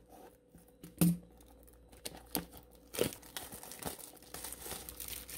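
Crinkling and tearing of the plastic shrink wrap on a sealed booster box as it is handled and unwrapped, with a few sharp knocks; the loudest knock comes about a second in. The crinkling turns dense and continuous from about halfway through.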